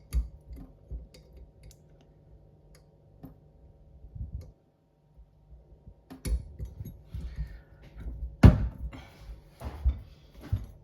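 Small metal clicks and knocks of an Allen key and tools being handled against a kitchen mixer tap while the key is fitted into the handle's grub screw, with one sharper knock late on.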